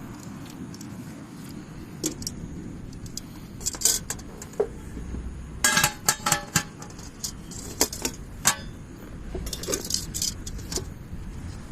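Small metal camping gear clinking and rattling as it is handled, in scattered clicks with a busier cluster about six seconds in.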